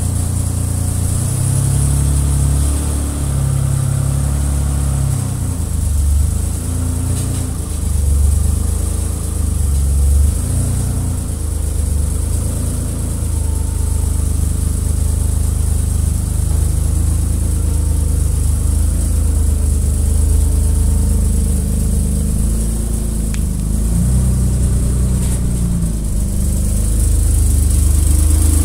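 BMW E30 coupé's 3.5-litre M30B35 straight-six engine being driven hard in a race, its note rising and falling again and again as the driver goes on and off the throttle and through the gears.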